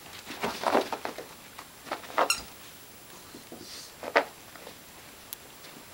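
Bedlington terrier scrabbling under a bed after a ball: short bursts of scuffling and clicking, with sharper knocks about two and four seconds in.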